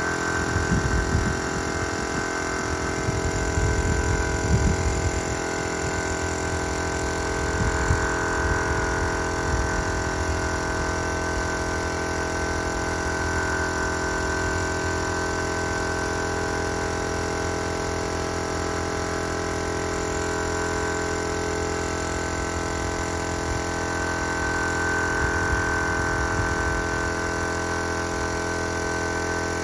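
Air compressor running steadily, its motor and pump giving a constant hum, under the hiss of air spray guns at work.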